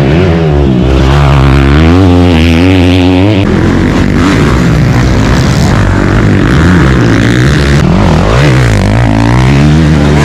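Dirt bike engines revving up and down as racing bikes ride past, with several abrupt changes from one bike to the next.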